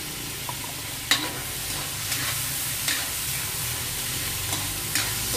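Shrimp frying with tomato in a hot metal wok: a steady sizzle, with a metal ladle scraping and clinking against the pan several times as it is stirred, the sharpest clink about a second in.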